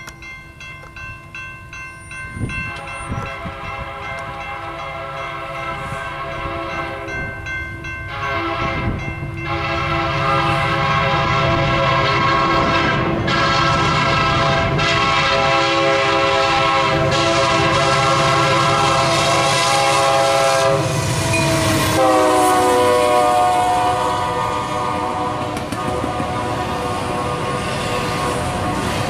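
Horn of lead locomotive UP 4471, an EMD SD70M, sounding a series of long blasts for the grade crossing as the train approaches, growing louder. About three-quarters of the way through, the chord drops in pitch as the locomotive passes, then goes on lower while the double-stack container cars clatter by over the rail joints.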